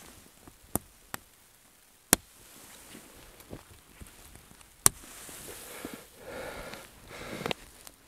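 Sharp metallic clicks and snaps of aluminium tent poles and a wire tent stake being fitted at a tent's corner, four clear clicks in the first five seconds, with soft handling of the snowy tent fabric between them. A brief faint whine about six seconds in.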